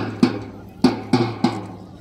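Military marching drum beating a cadence for troops on parade: sharp strikes in an uneven rhythm, about six in two seconds, each with a short ring.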